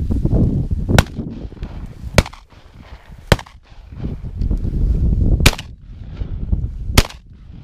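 Shotgun shots fired at ducks: five sharp reports spread over about six seconds, the first and fourth the loudest. Between them a low rumble of wind on the microphone and movement through dry grass.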